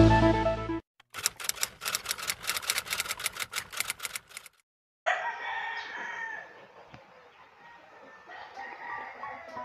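Roosters crowing from about five seconds in, a long call and then another near the end. Before that, the end of electronic music and then about three seconds of rapid, typewriter-like clicking.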